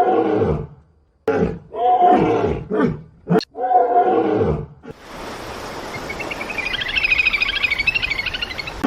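A large animal giving four loud, roar-like calls in quick succession, each falling in pitch. From about five seconds in they give way to a steady hiss with a fast pulsing chirr above it.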